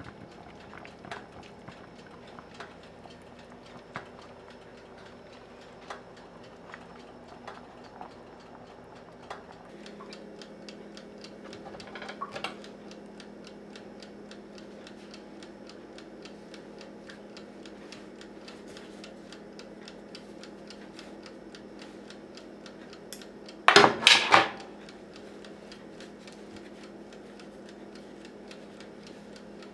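A ceramic bowl clinking now and then on a pot of boiling water, then a steady low hum with faint ticking, broken by a short burst of loud knocks about 24 seconds in.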